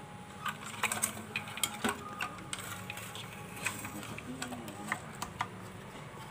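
Irregular clicks and knocks, about ten in all, from a CRT TV's circuit board and chassis being handled and turned over to reach the solder side, over a steady low hum.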